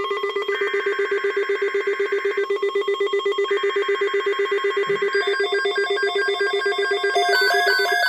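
Emergency Alert System SAME header: two bursts of shrill warbling data tones, each about two seconds long with a one-second gap. Under them runs a steady, rapidly pulsing electronic tone, which gives way near the end to a stepping electronic melody.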